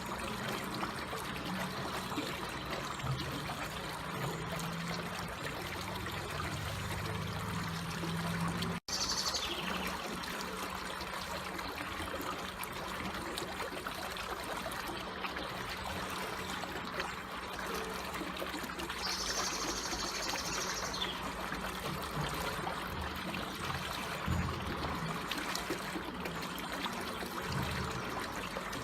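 Water trickling and flowing steadily and gently. It cuts out for an instant about nine seconds in.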